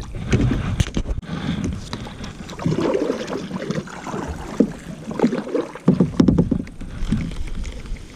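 Small fishing boat on the water: irregular sloshing, knocking and handling sounds against the hull.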